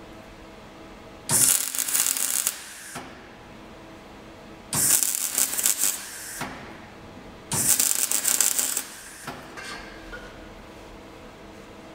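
MIG welding on a steel patch panel: three bursts of arc crackle, each one to two seconds long, as short runs of weld are laid, with a faint steady hum between them.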